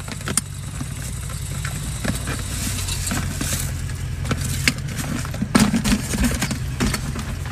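Steady low rumble of a moving car heard from inside the cabin, with scattered clicks and a cluster of sharper knocks and rustles about five and a half to six and a half seconds in, as a handbag is lifted toward the driver.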